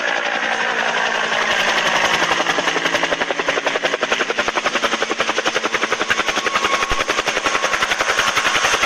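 Helicopter rotor sound effect: a continuous, rapid and even blade chop over a steady whir, the chop growing stronger over the first couple of seconds.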